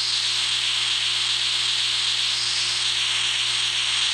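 Steady sizzling hiss of food frying in a pan.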